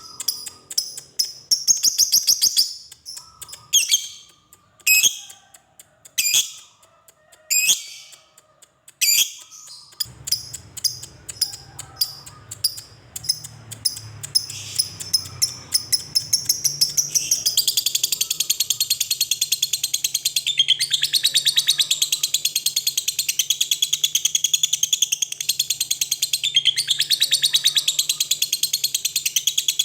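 Lovebird calling. Short sharp chirps and quick ticking notes come first, then about 17 seconds in a long, unbroken, high-pitched chattering trill begins: the 'ngekek' of a lovebird in full song.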